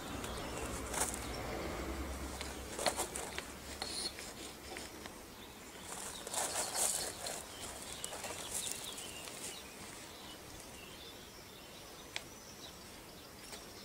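Faint scrapes and rustles of toddlers playing on gravel and drawing with chalk, with a low rumble in the first few seconds and short bird chirps now and then.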